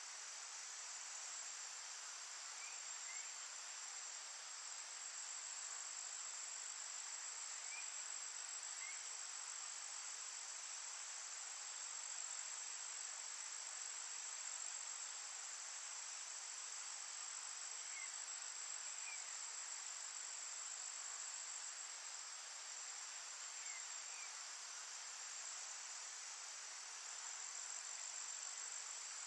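Steady high-pitched chorus of forest insects such as crickets, unbroken throughout, with a faint pair of short chirps every few seconds.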